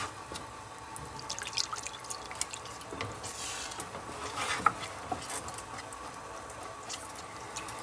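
Wooden spoon stirring a thick flour, oil and almond-milk white sauce quickly in a stainless steel saucepan: wet stirring sounds with scattered light knocks of the spoon against the pan. The fast stirring keeps the thickening sauce from going lumpy.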